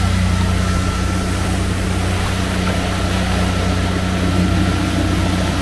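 Small boat's Suzuki 60 hp outboard motor running steadily under way. Its steady hum sits under a constant rush of wind and water.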